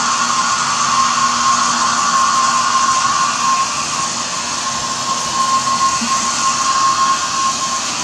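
Small handheld hair dryer running steadily, a constant rush of blown air with a steady motor whine, a little softer after about four seconds.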